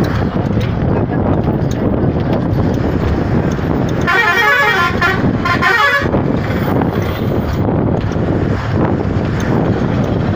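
Steady road and engine rumble heard from inside a moving vehicle. A vehicle horn sounds for about two seconds, about four seconds in.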